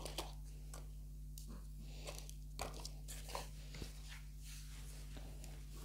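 Loose potting soil being scraped and gathered by hand on a tiled floor: irregular small crunches and gritty scratches.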